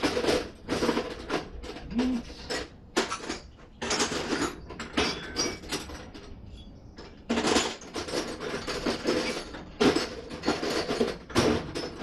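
Metal hand tools clattering and clinking as they are rummaged through in a toolbox, in irregular bursts with a quieter pause about six seconds in.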